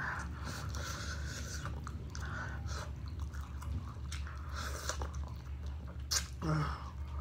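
Close-up chewing and biting into a fried chicken wing coated in sticky spicy sauce, with irregular small crackles and clicks of mouth and meat. About six seconds in there is a sharp click, then a brief vocal sound.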